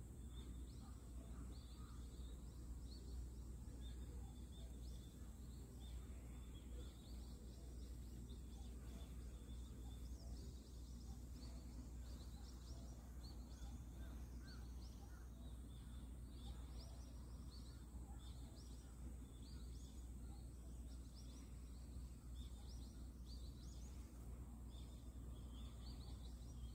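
Quiet outdoor ambience: a steady low rumble with short, high chirps repeating through it.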